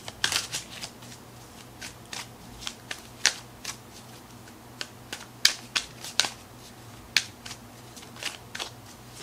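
A deck of tarot cards being shuffled by hand: a string of short, sharp, irregular card snaps and slaps, some much louder than others, with no steady rhythm.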